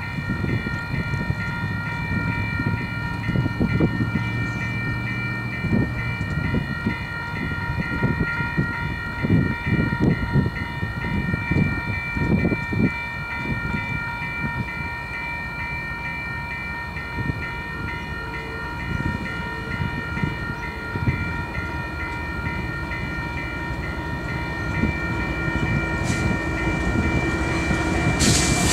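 Railroad grade-crossing warning bells ringing in a fast, steady pulse, over the low rumble of an approaching Union Pacific freight train that grows louder near the end as the lead locomotive reaches the crossing.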